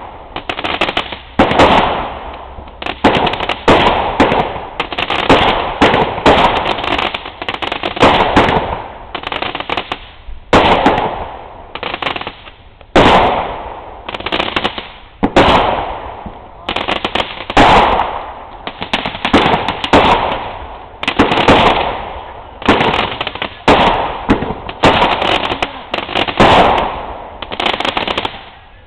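Fireworks going off in a steady barrage, a loud sharp bang about once a second, each followed by a noisy tail that fades away.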